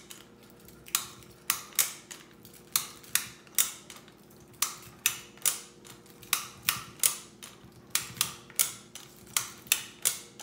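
Trigger of a red plastic jerky gun clicking as it is squeezed over and over, about twice a second and sometimes in quick pairs, each pull pushing ground venison out through the nozzle.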